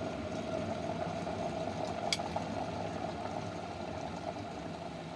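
Kitfort glass electric kettle at a full rolling boil, a steady rumbling bubble. About two seconds in comes a sharp click as the kettle switches itself off at the boil, and the bubbling then starts to die down.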